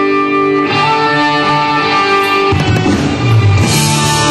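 Country-rock music led by electric guitar: held, ringing guitar chords, then the full band with bass and drums comes in a little over halfway through.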